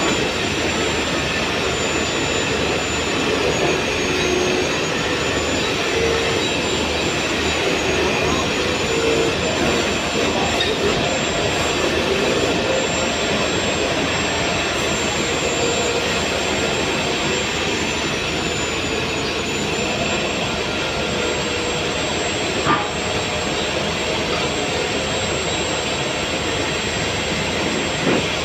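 A machine running steadily and loudly, with a thin high whine that wavers slightly in pitch. Near the end a short, sharp crack as the stick-welding arc is struck.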